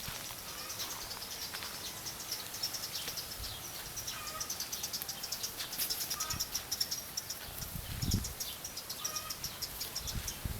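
Rapid, high-pitched chirping repeating all through, with a few lower chirps now and then, over a quiet background.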